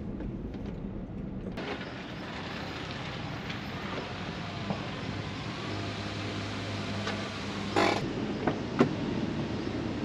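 A car door being opened over steady outdoor background noise: a short rattle about eight seconds in, then a sharp click a second later.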